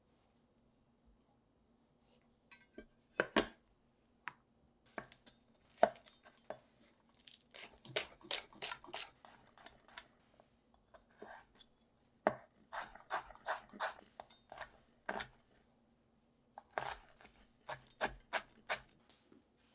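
Broad-bladed kitchen knife chopping vegetables and herbs (tomato, spring onions, green chillies, coriander) on a bamboo cutting board. Runs of quick knocks of the blade on the wood, several a second, come with short pauses between them.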